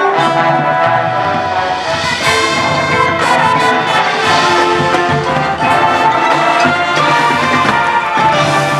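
Marching band's brass section playing full, held chords, with trumpets and trombones prominent.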